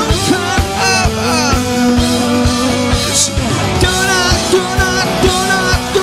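Live rock band playing loud, with a singer's voice over drums, steady drum beats and a cymbal crash about three seconds in.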